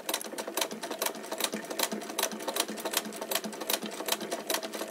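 Singer 99K sewing machine stitching, turned by its hand crank: a steady, even clatter of about four to five stitches a second.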